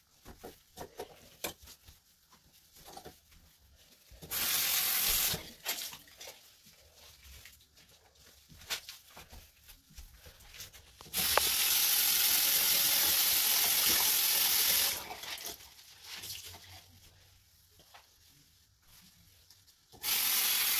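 Bathroom sink faucet turned on and off three times: a short run of about a second, a longer run of nearly four seconds, then again near the end. Small knocks and clicks of handling at the sink come between the runs.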